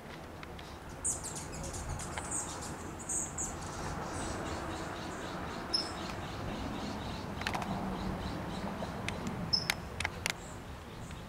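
Small birds chirping a few times in short high calls over a steady outdoor background that swells and fades, with a few sharp clicks near the end.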